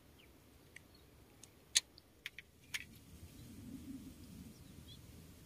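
A handful of small, sharp clicks and taps, about six in two seconds, from hands working at fishing tackle after a catch, followed by a faint low rumble.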